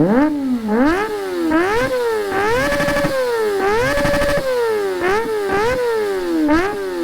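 Kawasaki ZX-25R inline-four revving hard through a Villain C36 aftermarket exhaust: quick throttle blips, about two a second, each rising sharply and falling away. The revs are held briefly at the top twice near the middle.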